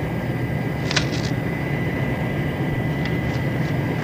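Steady aircraft engine drone heard inside the cockpit, with brief crisp paper rustles about a second in and again around three seconds as a sealed envelope of orders is opened and the papers unfolded.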